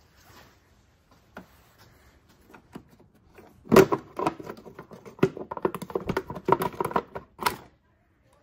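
Plastic latches of a 2005 Lexus GX470's under-hood fuse box cover being unclipped and the lid lifted off. A loud snap comes nearly four seconds in, then a few seconds of rapid plastic clicks and rattles.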